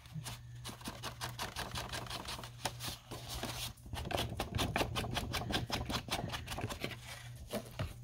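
Ink blending tool scrubbed in quick, repeated strokes against the edge of a kraft-paper page to distress the edge with ink. The strokes get faster about four seconds in, to roughly five a second, over a steady low hum.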